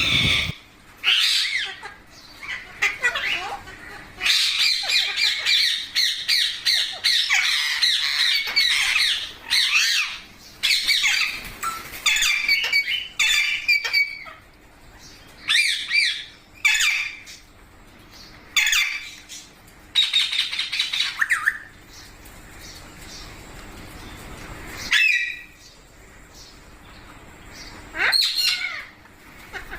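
Pet rose-ringed parakeets (Indian ringnecks) squawking and chattering: a dense run of harsh, high calls for the first half, then scattered calls with short pauses between them.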